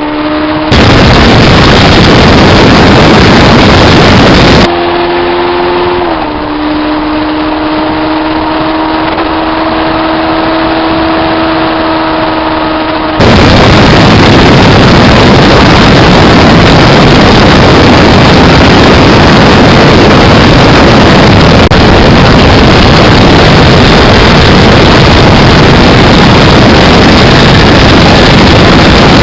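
Parallel-twin motorcycle engine run for a sound comparison. The loud, overloaded roar at the start and from about 13 seconds on, with its even steady idle in between, holds a clear hum whose pitch steps down slightly once.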